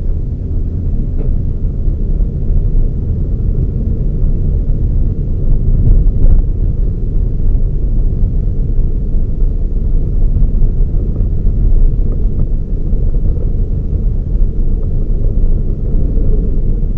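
Toyota Raize compact SUV driving along: a steady low rumble of engine and road noise that holds level without revving up or down.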